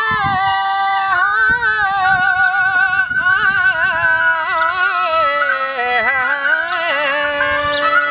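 Balochi folk music: a continuous, ornamented melody that wavers and slides in pitch, played on the suroz (bowed fiddle) over dambura accompaniment. Steady held tones join it near the end.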